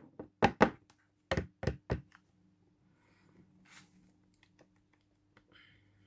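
Sharp taps on the metal body of a SIG Sauer SP2022 CO2 pistol replica, six quick knocks in the first two seconds, then only faint handling clicks.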